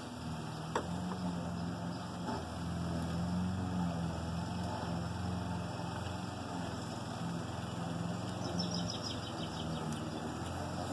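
Steady low drone of a motor running in the background, with a few light clicks and a brief quick run of light ticks near the end as metal engine parts are handled.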